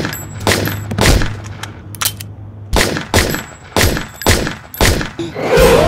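A semi-automatic pistol fired again and again: about nine sharp shots, unevenly spaced, roughly half a second apart.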